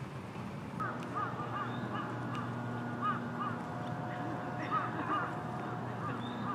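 Birds calling, a run of short, repeated chirps, over a low steady hum.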